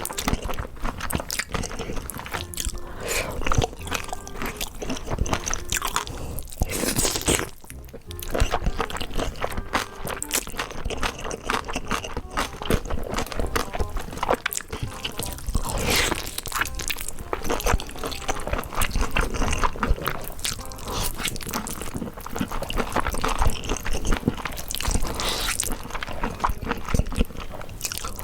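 Background music over close-miked crunching and chewing of food, with many crisp bites and crackles; the sound drops briefly about a quarter of the way through.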